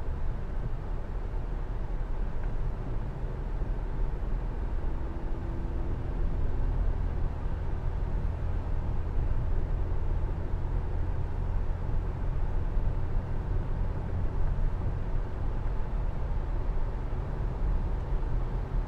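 Steady road and engine rumble heard from inside a moving car's cabin, with tyre noise from driving on a rain-wet road.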